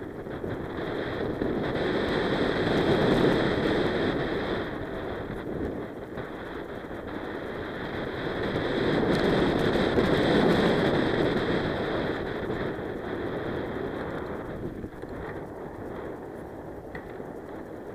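Wind rushing over the microphone of a camera on a moving mountain bike, mixed with the tyres rolling over a loose dirt and gravel trail. It swells twice, a couple of seconds in and again about halfway, then eases off.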